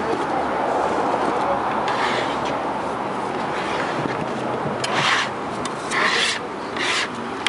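Hinged wooden tortilla press and its plastic sheet being worked by hand on masa dough: steady rubbing and rustling, with three short, louder scrapes in the second half.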